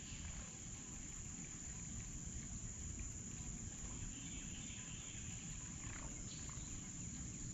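Faint, steady high-pitched drone of singing insects, over a low rumble of outdoor background noise.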